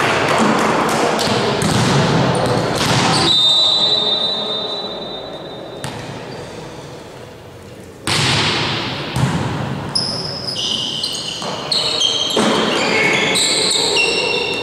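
Referee's whistle, one steady blast of about two and a half seconds, signalling the serve, then the sharp smack of a volleyball jump serve about eight seconds in. Short high squeaks of sneakers on the gym floor and further ball hits follow as the rally starts, with voices chattering at first.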